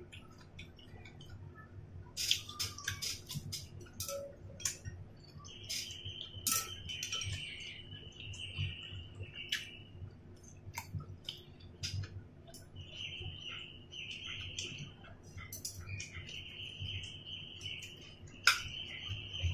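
Close eating sounds: chewing on dumplings and chopsticks clicking against a ceramic bowl and plate, as sharp scattered clicks. Behind them, a high-pitched trilling comes and goes in several stretches of one to four seconds, most of the way through.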